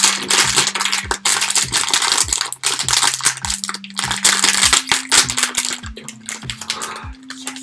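Sparkly foil blind bag crinkling and crackling as it is handled and pulled open, in quick sharp crackles, over a low tune of held notes.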